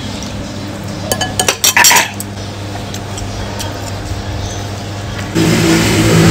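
A metal spoon clinking against a ceramic soup bowl, a quick run of clinks about a second in. Under it a steady engine-like hum that gets suddenly louder near the end.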